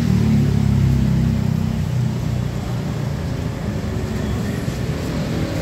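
A vehicle engine running close by, loudest in the first two seconds and then easing off.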